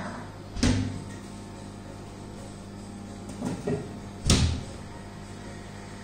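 Kitchen wall cupboard doors knocking shut as things are put away: a sharp knock under a second in, a couple of smaller knocks about three and a half seconds in, and the loudest knock soon after. A microwave oven hums steadily under them as it runs.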